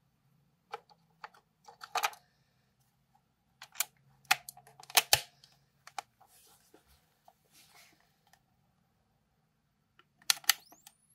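Plastic clicks and snaps from a Fuji DL-95 Super compact 35mm film camera as AA batteries are pushed into its battery compartment and the compartment is handled, the loudest snap about five seconds in. Near the end the front lens cover slides open with a couple of sharp clicks, and a high whine rises steeply in pitch as the camera powers up.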